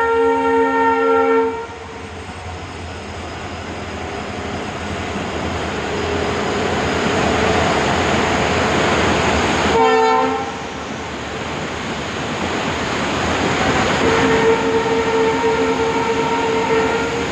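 Train horn sounding three times: a long multi-tone blast that cuts off about a second and a half in, a short toot about ten seconds in, and another long blast from about fourteen to seventeen seconds in. Under it, a steady loud rushing roar of a nearby waterfall and a passing train.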